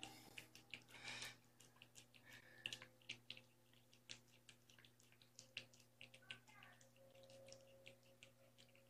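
Near silence: a faint steady hum, with faint irregular small clicks and smacks of a cat eating from a dish.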